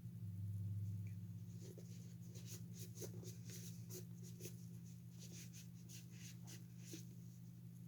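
Damp cloth wiping and rubbing the head of a Rockin Randall toy figure: a run of short, irregular scratchy strokes, a few a second, over a steady low hum.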